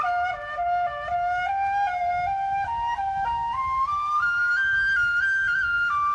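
Soundtrack music: a single slow melody line on a wind instrument, climbing step by step and turning back down near the end, over a low rushing background noise.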